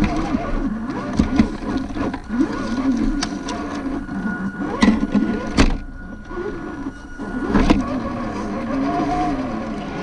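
Electric drivetrain of an RC4WD Trail Finder 2 scale RC truck whining, its pitch rising and falling with the throttle, heard from a camera mounted on the truck, with sharp knocks and clatter as the truck goes over rocks and gravel.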